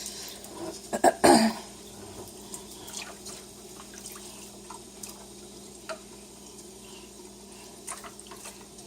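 Kitchen sink tap running with a quiet steady sound of water, with a brief loud sound about a second in and a few small clicks and knocks later.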